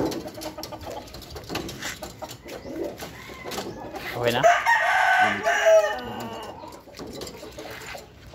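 A rooster crows once, a loud call of under two seconds starting about four seconds in, with lighter clucks and knocks against the aluminum cage around it.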